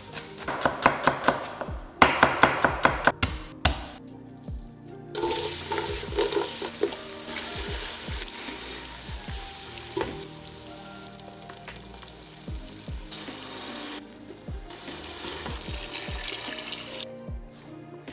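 A chef's knife chops celery on a cutting board in quick strokes for the first few seconds. Then onions, carrots and celery sizzle as they are sautéed and stirred in a stainless steel pot, a steady hiss that fades out shortly before the end.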